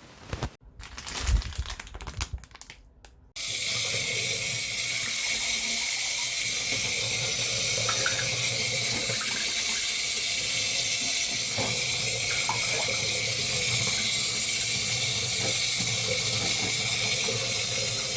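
A few seconds of knocking and handling, then water running steadily from a tap, starting suddenly about three and a half seconds in.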